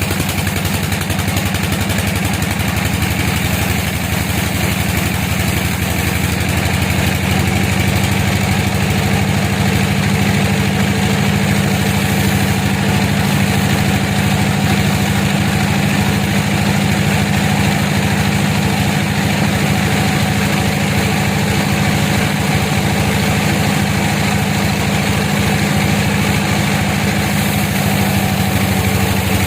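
An engine running steadily at an even speed, a constant low drone with no changes in pitch.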